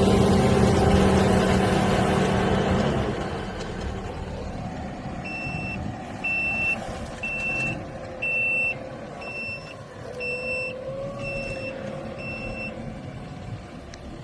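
Tractor engine running steadily, then fading after about three seconds. An electronic beeper then sounds eight short, even beeps, about one a second.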